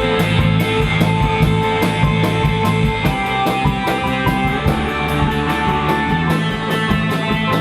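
A rock band playing together: electric guitar and a drum kit keeping a steady beat.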